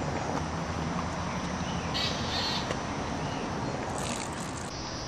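Outdoor background hum with a crow cawing once about two seconds in; near the end, red wine poured from a glass bottle splashes onto the ground.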